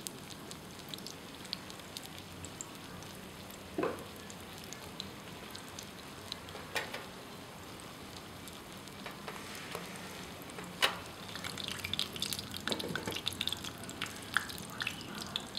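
Steamer pot on the stove, its water boiling under the steaming tray: a steady hiss with scattered small ticks and pops, growing busier near the end. Three sharper knocks stand out along the way.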